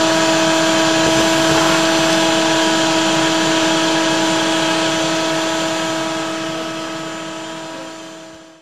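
Vacuum running steadily through a wide hose, sucking up dead bees and hive debris: a rushing hiss over a steady pitched hum. It fades out over the last few seconds.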